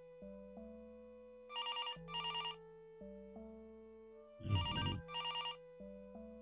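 A telephone ringing in two double rings, each a pair of short trilling bursts, the second pair louder, over soft background music of slow sustained notes.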